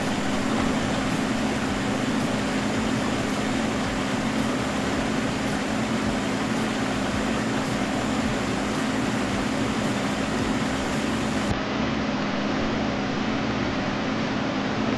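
Ready-mix concrete lorry running steadily, its diesel engine turning the mixer drum as concrete is discharged, giving a constant low drone.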